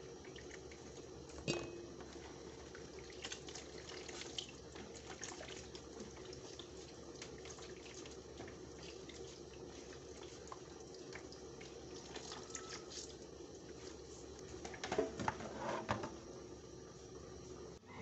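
Hands squeezing and kneading wet grated coconut in a basin of water to press out coconut milk: wet squelching, with the milky liquid dripping and splashing back into the basin, a few louder splashes near the end. A faint steady hum runs underneath.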